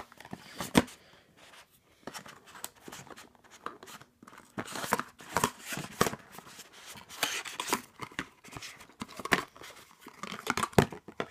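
Cardboard advent-calendar box and a small card product box being pulled open and handled: a string of scrapes, rustles and sharp clicks of card, loudest about a second in and near the end.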